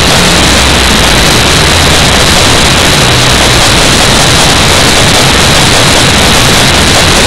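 Very loud, steady rushing noise with no distinct events in it.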